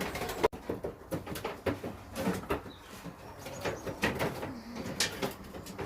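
Pigeons cooing in a loft, with scattered knocks and clicks, a sharp one about half a second in.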